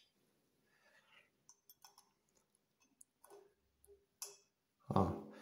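Faint, scattered light clicks of a metal hex key being fitted into the set screw under a chrome shower mixer lever.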